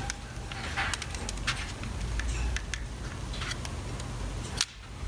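Small clicks and scrapes of plastic electric-shaver housing parts being handled and fitted during reassembly of a Panasonic ES-RL21 shaver, with a sharper click near the end.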